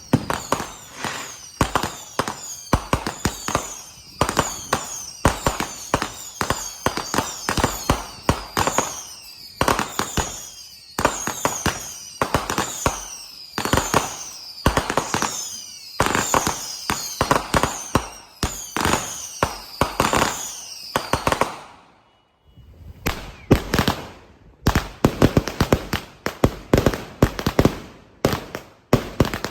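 Consumer fireworks going off in rapid, continuous bangs and crackles, overlaid for most of the stretch by short, falling high-pitched whistles that repeat about once a second. About two-thirds of the way through the sound briefly drops out, then rapid bangs resume.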